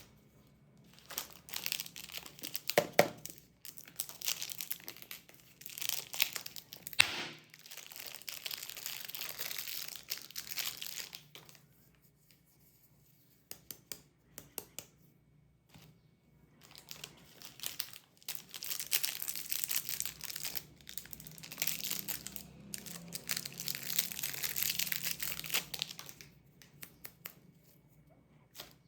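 Candy wrappers crinkling and tearing as candies are unwrapped, in bursts separated by quiet pauses, with a couple of sharp snaps about three and seven seconds in.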